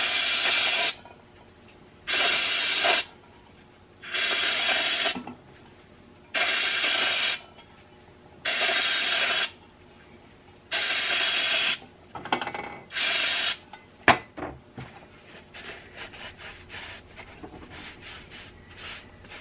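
Aerosol carburetor cleaner sprayed in seven hissing blasts, each about a second long and about two seconds apart, flushing black gunk out of an old chainsaw part. After the last blast comes a sharp click, then faint clicking and rubbing of the part being handled.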